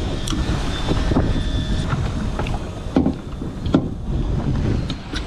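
Wind buffeting the microphone on a boat at sea, a heavy low rumble, with scattered knocks and clicks from gear on deck.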